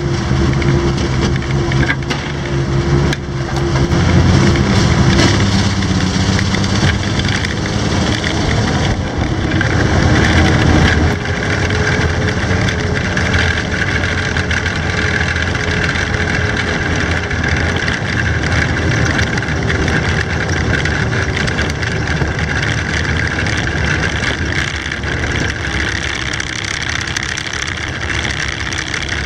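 Studebaker M29C Weasel's six-cylinder flathead engine running as the tracked vehicle drives, heard from on board together with the clatter of its tracks. The engine note changes about nine to eleven seconds in, then settles into a steady run.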